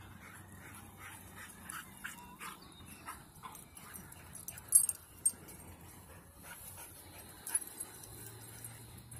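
Small dogs making short, repeated calls over the first few seconds, with a couple of sharp clicks about halfway through and one more later.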